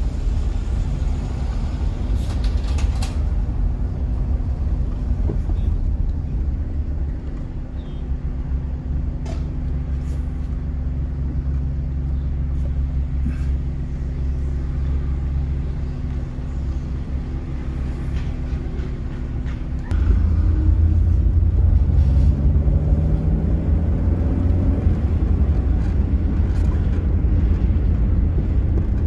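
Car engine and road noise heard from inside a moving car, a steady low rumble. About two-thirds of the way through it gets louder, and the engine note rises as the car speeds up.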